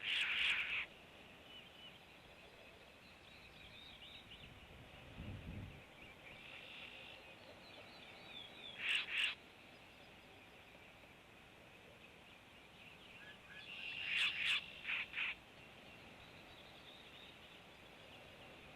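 Bird calls: a loud call at the start, another about nine seconds in, and a quick cluster of several near fifteen seconds, over faint continuous chirping in the background. A low thud comes about five seconds in.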